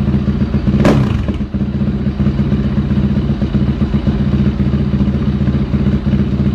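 Yamaha YZ450F's 450 cc single-cylinder four-stroke engine with a Big Gun exhaust, idling steadily. There is one sharp crack about a second in.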